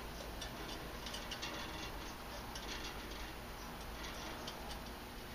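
Faint, scattered light clicks and taps of small metal parts as a Coleman 220 lantern's brass generator is worked back into place in the fuel valve.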